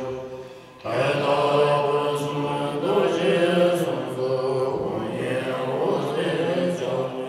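Buddhist monks chanting in long, held tones. The chant fades down at the start, drops away briefly and comes back in about a second in.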